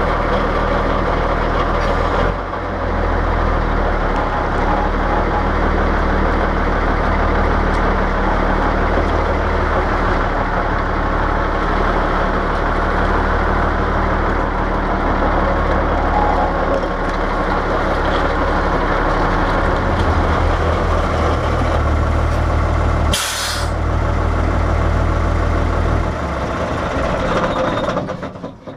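Cummins 855 (335) diesel of a 1952 Kenworth CD521 running steadily under way at low speed through dual 7-inch exhaust pipes, a deep, even drone. The engine note dips briefly about two seconds in, and a short, sharp hiss of air comes about 23 seconds in. The engine sound drops and fades away near the end.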